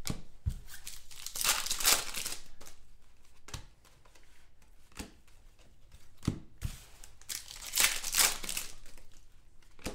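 Trading cards being flipped and slid across one another, with a few light taps, then a foil card-pack wrapper crinkling and tearing open near the end.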